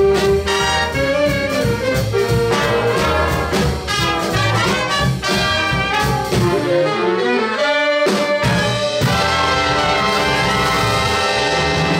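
Jazz big band of saxophones, trumpets and trombones with upright bass and piano playing the closing bars of a tune. About two-thirds of the way through, the horns descend, and then the whole band hits and holds a long final chord.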